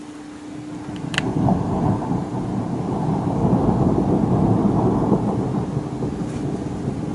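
Thunder rumbling, starting about a second in, swelling to its loudest around four to five seconds and then easing off a little.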